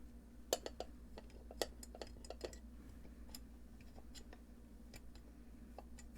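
Scattered light clicks and taps from a pen and the pedal's metal enclosure being handled, a few sharper ones in the first two seconds, over a steady low electrical hum.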